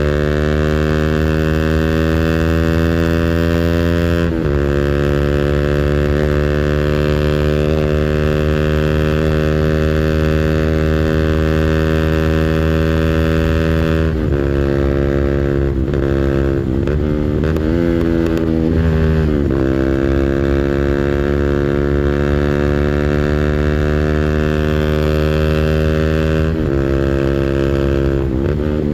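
A 200cc engine held at high revs on its rev limiter, a steady drone whose pitch dips and climbs back up a few times, with a run of quick dips and recoveries about halfway through.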